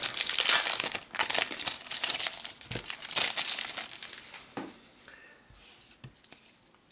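Wrapper of a Panini Adrenalyn XL trading-card booster pack crinkling and tearing as it is opened by hand. The crinkling is dense for the first few seconds, then thins out and fades, with a single light tap just past the middle.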